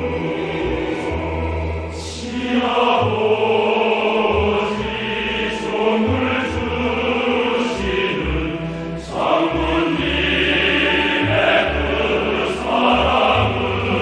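Choral song: voices singing long, sustained lines over instrumental accompaniment with a steady low bass, with a sharp accent about two seconds in and another about nine seconds in.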